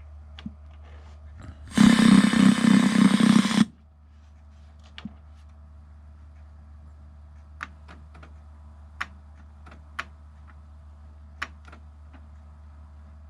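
A loud buzzing burst of about two seconds from a small motor or power tool, then a run of light, scattered clicks and taps from small parts being handled, over a steady low hum.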